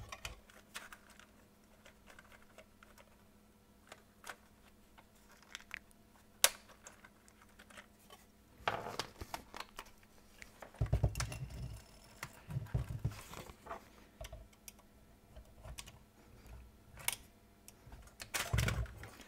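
Scattered clicks, knocks and rattles of plastic and thin sheet metal as a GM Delco car radio's plastic faceplate is worked off its metal chassis. There is a single sharp click about six seconds in and a busier run of handling noise in the middle.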